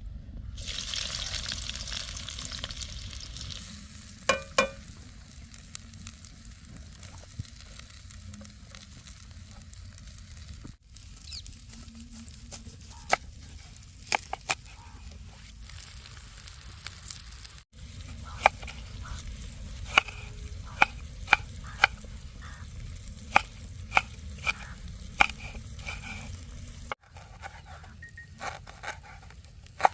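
Chicken curry frying in a pan over a wood fire: loud sizzling for the first few seconds, then a quieter steady sizzle with many sharp clicks and knocks, like a spoon stirring against the pan. The sound breaks off briefly three times.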